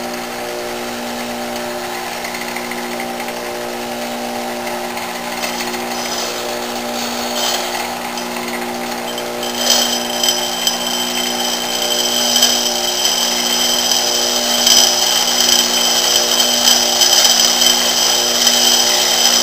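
Bench grinder running with a steady hum; a lathe tool bit is touched lightly to the wheel and then, about halfway through, pressed firmly against it, adding a loud high-pitched grinding whine that grows louder toward the end as the side rake of a right-hand turning tool is ground.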